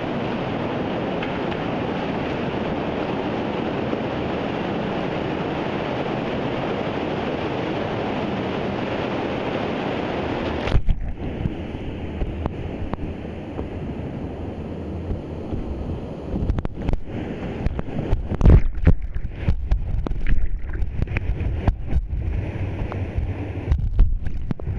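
Whitewater rushing steadily through small rapids inside the river tunnel. About eleven seconds in, the sound cuts to a duller rush broken by irregular low thumps and knocks against the microphone.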